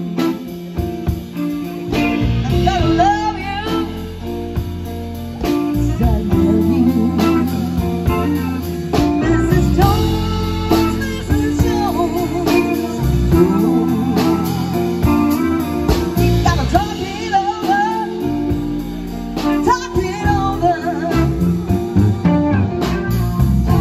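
Live band playing a slow soul ballad on electric guitar, electric bass and drums, with a woman singing over it.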